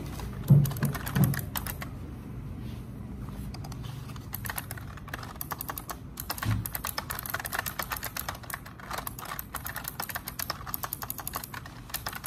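Typing on a computer keyboard: a quick, uneven run of key clicks that grows denser about four seconds in. A few dull thumps come near the start, the loudest about half a second in.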